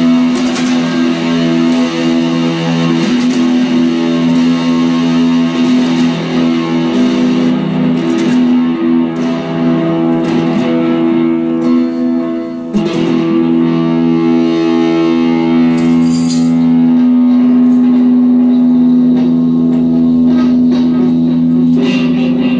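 Stratocaster-style electric guitar playing an instrumental piece, with long sustained notes and picked strokes over them.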